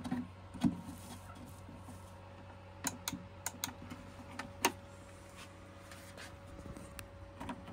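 Scattered light clicks and taps of fingers handling the plastic housing and wiring in an air fryer's base, over a faint steady hum. A cluster of clicks comes in the middle, the sharpest about a second in and again past the middle.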